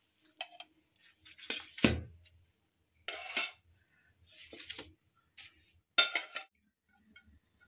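A steel spatula scraping and clinking against a coated frying pan and a steel plate as steamed banana-leaf fish parcels are lifted out and set down. The scrapes and knocks are intermittent with short pauses, with a louder knock about two seconds in and another clatter about six seconds in.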